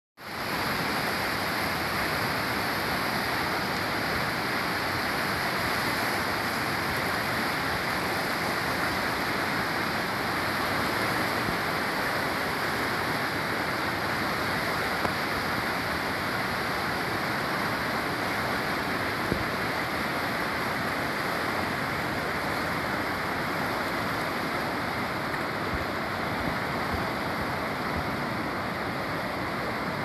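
Muddy, flood-swollen river running fast through rocky rapids: a steady rush of churning white water.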